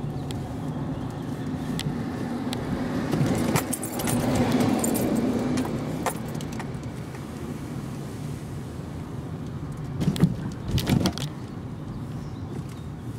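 Small car's engine and road noise heard inside the cabin, the engine note steady for the first few seconds and easing after about five and a half seconds. Scattered light clicks and rattles run through it, with a louder cluster of knocks a little past the middle.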